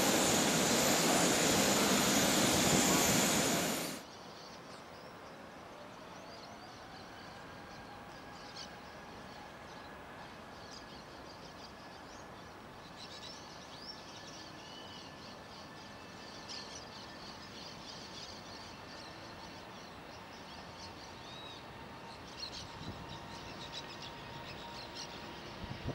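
The Airbus A350-900's Rolls-Royce Trent XWB jet engines are loud and close at first, then cut off abruptly about four seconds in. What follows is a much quieter, distant jet-engine hum with a faint whine that rises and then holds, while the airliner lines up and starts its takeoff roll. Short high chirps are scattered over it.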